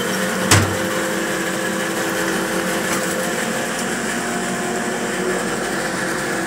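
Steady hum of a coal-fired boiler room's machinery running, with one sharp knock about half a second in as the stoking shovel strikes.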